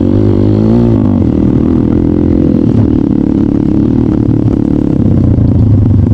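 Trail motorcycle engine running hard, its pitch rising and dipping about a second in, then holding steady.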